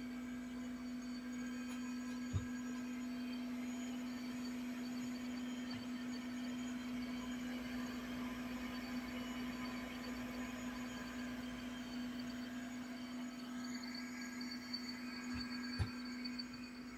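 Kawamoto NF2-250S well pump's electric motor running with a steady hum and a thin whine of higher tones over it, the abnormal noise the seller says it makes. Two sharp clicks, a couple of seconds in and near the end.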